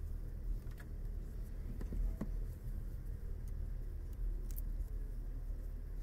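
A few light clicks and clinks of hands working on hoses and fittings in a car's engine bay, reconnecting the vacuum hose to the brake booster, over a low steady rumble.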